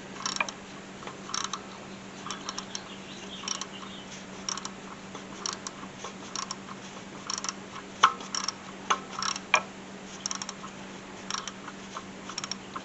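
Irregular clicks and clinks of hand tools on metal as the bolts of a new belt tensioner are fitted and tightened, heard over a faint steady hum.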